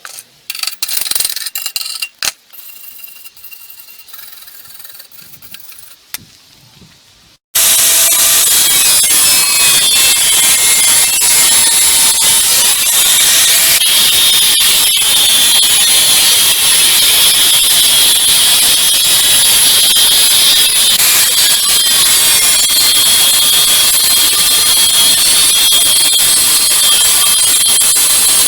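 A few light metallic knocks and clicks, then about seven seconds in a loud angle grinder starts abruptly, grinding steel with a steady high-pitched whine and hiss.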